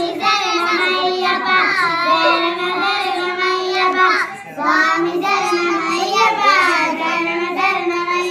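A child singing a Telugu folk song without words being caught clearly, in long, wavering held notes with a short breath about halfway through.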